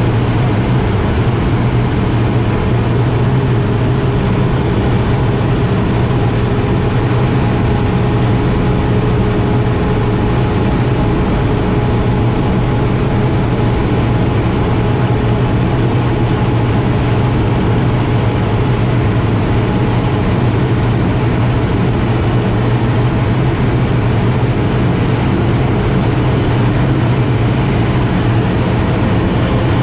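Air Tractor 802's single turboprop engine and propeller running steadily in low-level flight, heard from inside the cockpit as a loud, constant deep drone with a faint steady whine above it.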